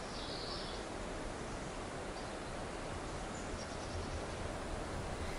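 Steady outdoor ambience: an even, faint hiss of open-air background noise, with a brief faint high chirp about half a second in.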